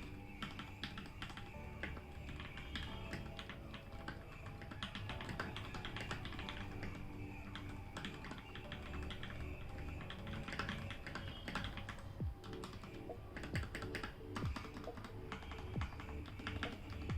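Typing on a Royal Kludge RK68 mechanical keyboard fitted with Gateron Pro Yellow linear switches, foam-modded and with cut stabilisers: rapid, irregular key presses, over background music.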